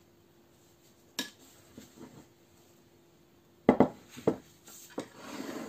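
Spoon and plates being handled on a table, clinking and knocking: a faint click about a second in, two loud sharp knocks a little past halfway, another about five seconds in, then a short scrape near the end.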